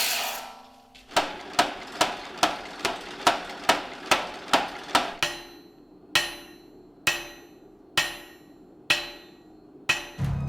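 Hammer striking metal on an anvil: a quick run of about ten blows, then slower single blows about a second apart, each leaving a ringing tone in the metal.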